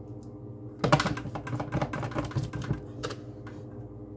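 Hard frozen mango chunks clattering into plastic blender cups: a quick run of sharp clicks for about two seconds, then one more click.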